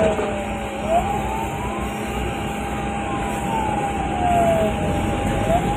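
Emergency vehicle siren wailing, its pitch sliding slowly down and back up, each sweep taking a couple of seconds, alongside a steady held tone.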